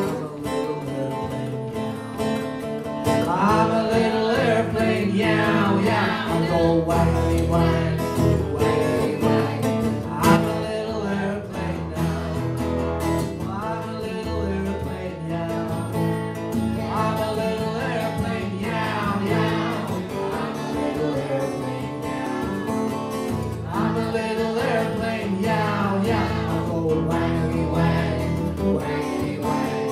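Acoustic guitar strummed steadily under a voice singing a folk song, with sliding, swooping vocal lines.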